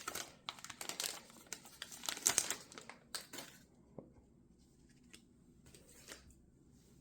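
Plastic wrapper of a Panini Mosaic football card pack crinkling and tearing as it is ripped open, lasting about three and a half seconds and followed by a few faint clicks.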